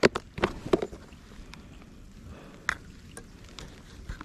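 Clear plastic tackle box being handled and opened: sharp plastic clicks and knocks from its snap latches and lid, a quick cluster in the first second, then a single click a little under three seconds in.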